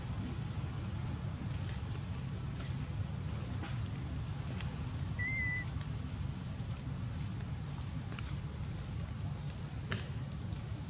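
Outdoor ambience: a steady low rumble and a steady high-pitched whine, with a few faint clicks and one short high chirp about five seconds in.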